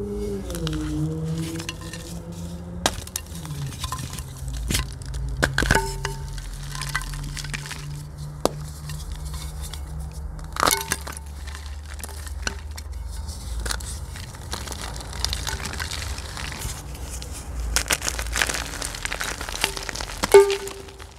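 Blocks of gym chalk crushed and crumbled between the fingers: scattered sharp cracks and crunches over a soft gritty crumbling, with the loudest snap near the end.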